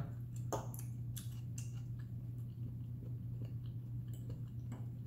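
A person chewing food with her mouth closed: soft, scattered mouth clicks and smacks, a few every second or so.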